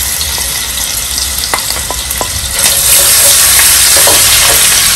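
Hot oil sizzling in a pan with whole spices frying in it, with a few light clicks of a wooden spatula. About two and a half seconds in the sizzle grows louder as ginger paste goes into the hot oil and is stirred.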